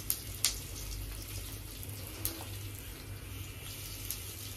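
Hot oil sizzling steadily in a steel kadhai as whole spices (black cardamom) and asafoetida temper in it, with a few sharp pops and crackles.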